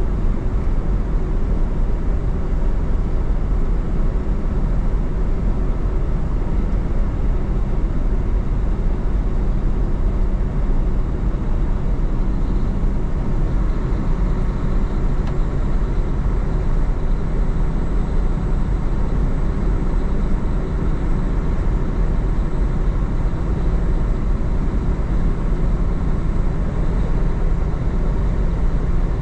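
Semi truck cruising on the highway, heard from inside the cab: a steady low drone of the diesel engine with road noise from the tyres.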